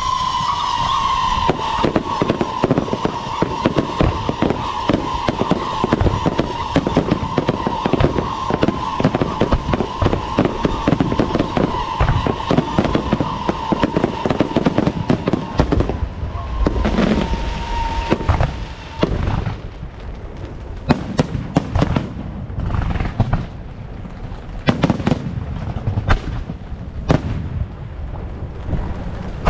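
Fireworks and firecrackers going off: a dense run of rapid crackling bangs with a steady high whistling tone over it that stops about two-thirds of the way through, followed by separate, louder single bangs.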